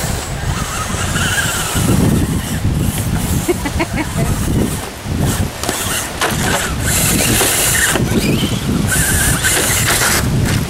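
Wind buffeting the microphone, with the on-and-off whine of a radio-controlled scale crawler truck's electric motor as it drives past close by.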